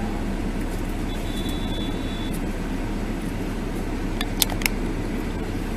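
Steady engine and road rumble heard from inside a car, picked up by a dashcam. A faint thin high tone sounds for about a second early in the stretch, and a few sharp clicks come about four and a half seconds in.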